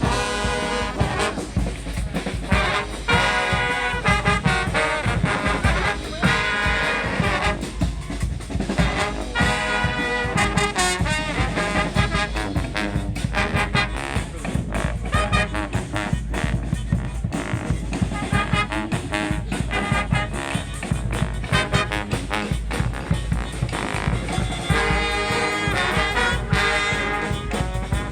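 Street brass band playing an upbeat tune: trombones and trumpets blare short repeated riffs every few seconds over steady drums.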